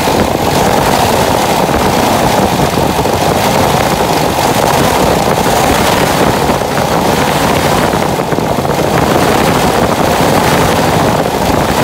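Toyota 4K four-cylinder petrol engine held at raised revs, running steadily with the whir of its belt-driven radiator fan close by. It is held up so the ignition timing can be seen advancing under the vacuum advancer.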